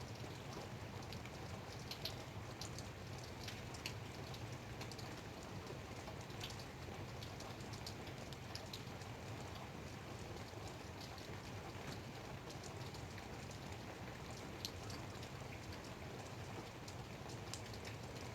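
Light rain falling steadily, a soft even patter with scattered individual drops ticking sharply on a hard surface.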